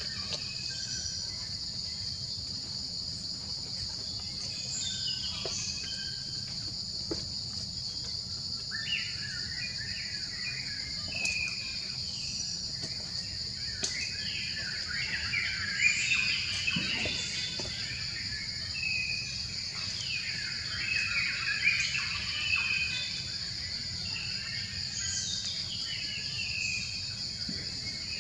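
A steady, high-pitched insect drone with many short chirping calls over it, starting about a third of the way in and thinning out near the end.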